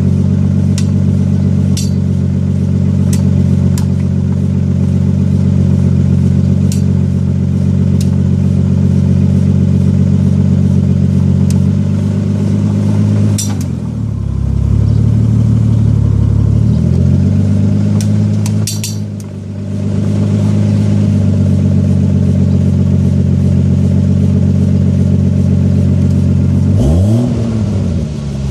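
Car engine running steadily, its pitch dipping and recovering twice and then briefly revved up and back down near the end, with scattered sharp clicks or ticks over the engine sound.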